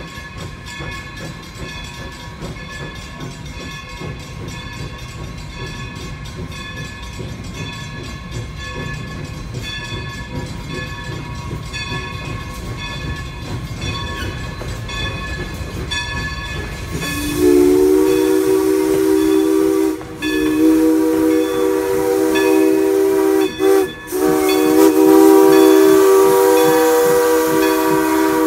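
New Hope & Ivyland No. 40, a Baldwin 2-6-0 steam locomotive, rumbles slowly along the track. About seventeen seconds in, its steam whistle sounds a loud chord of several notes in three long blasts, with steam hissing under it.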